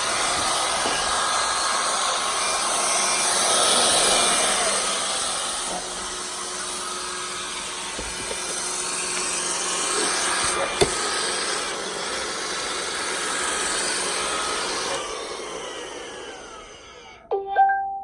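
Roomba S9 robot vacuum running its suction motor and brushes, with one sharp click partway through. Near the end the motor winds down with falling pitch as the robot stops because its dust bin has been removed, followed by a short two-note error chime.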